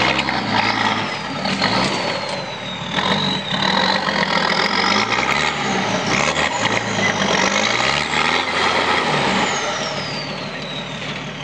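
Nissan Patrol 4x4 engine revving up and down repeatedly under load as it crawls up a rock step, with a high whine gliding above the engine note and occasional knocks. Near the end the revs fall back to a lower steady run.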